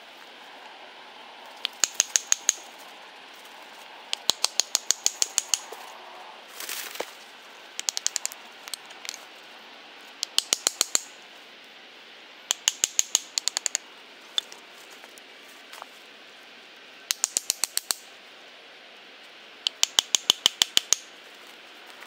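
Small Gränsfors hatchet tapping wooden wedges into a wet birch round to split it: quick runs of sharp, ringing knocks, about five to ten hits in each run, seven runs in all with short pauses between.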